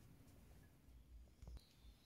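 Near silence: faint footsteps on a dry trail littered with dead leaves and bamboo stalks, with a few soft knocks about one and a half seconds in. Faint high bird chirps begin near the end.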